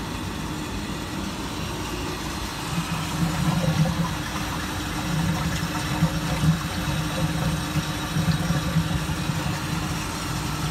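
Wire EDM machine humming steadily as its work tank drains, with a low droning that swells and wavers from about two seconds in.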